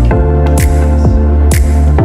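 Electronic background music with a steady beat: sustained synth notes, repeated thuds that drop in pitch, and a brighter hit about once a second.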